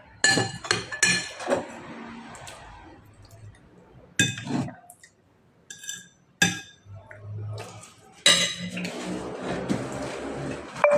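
Dishes and utensils clinking and knocking: a run of sharp clinks with short ringing, then a few separate clinks, and a steady rushing hiss that starts about eight seconds in.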